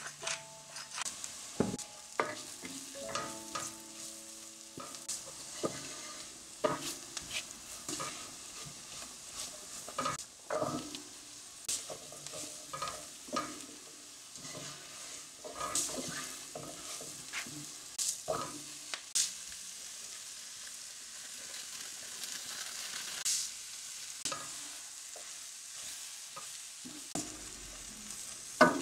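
Wooden spoon stirring and scraping vegetables sautéing in a stainless steel pot: a steady sizzle with irregular knocks and scrapes of the spoon against the pot.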